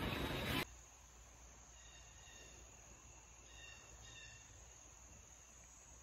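A short loud rush of noise cuts off abruptly about half a second in. Then quiet outdoor ambience follows: a steady high-pitched insect drone with a few faint bird chirps.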